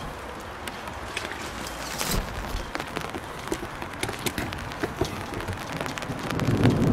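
Steady rain with scattered sharp ticks of drops striking nearby surfaces. Near the end a low rumble of thunder starts to swell.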